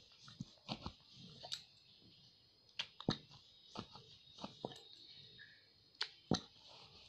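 Wooden rolling pin knocking and clacking against a wooden rolling board while dough is rolled out, in irregular sharp taps, the loudest a little after 3 s and about 6 s in.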